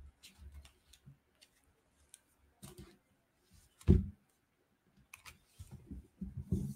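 Scattered faint clicks and low thumps, the loudest a single heavy thump about four seconds in, with a cluster of low knocks near the end.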